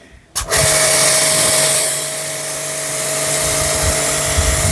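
Orion Superjet 100S pressure washer spraying through a 40-degree fan tip: a steady motor and pump whine under the hiss of the water jet. It is quiet at first, with the trigger let go, and the machine and spray start again about half a second in.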